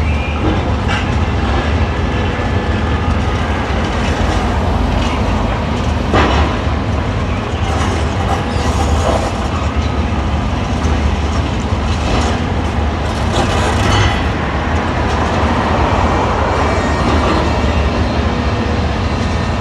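A heavy diesel demolition machine running steadily, with scattered knocks and clatter of breaking rubble.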